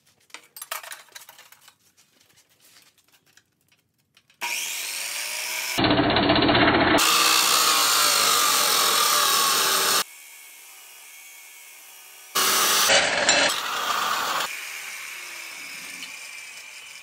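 Abrasive chop saw cutting a flat steel strip, the wheel grinding loudly through the metal. A few light handling clicks come first. About four seconds in the saw starts and cuts. The noise breaks off abruptly, comes back two seconds later, then dies away near the end.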